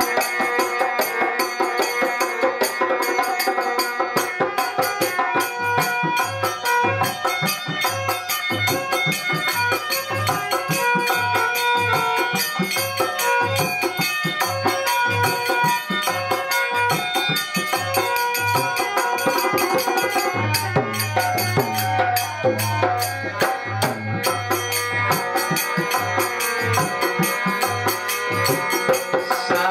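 Live devotional bhajan music: an electronic keyboard plays a melody over percussion keeping a steady beat, with low drum strokes and rattles.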